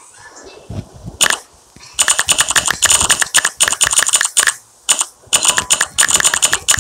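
Smartphone on-screen keyboard key-click sounds as text is typed: a single click about a second in, then quick runs of clicks, several a second, from about two seconds in, broken by short pauses.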